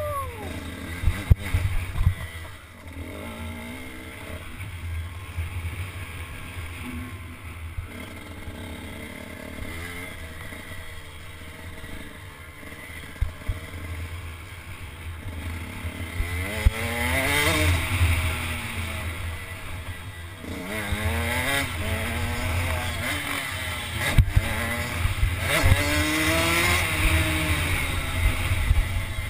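Dirt bike engine heard from the rider's helmet, revs rising and falling again and again through the corners and straights of a motocross track, louder and revving harder in the second half, over a steady low rumble of wind, with a few sharp knocks from the bike over the bumps.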